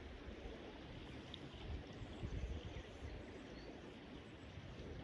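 Faint steady rush of flowing river water, with wind buffeting the microphone in irregular low gusts.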